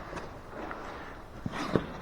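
Footsteps wading through a shallow creek, water sloshing, with two sharper steps or knocks about one and a half seconds in.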